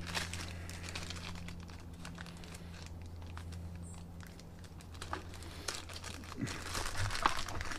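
Rustling and scattered light clicks from hands handling small tools and parts, over a steady low hum that stops about seven seconds in.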